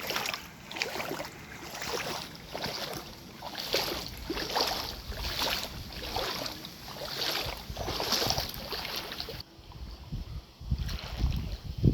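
Repeated splashing in floodwater, a noisy swish about once a second, stopping suddenly about nine seconds in; wind buffets the microphone near the end.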